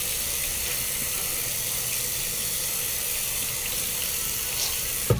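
Hot water running steadily from a sink tap, then stopping abruptly with a short knock near the end.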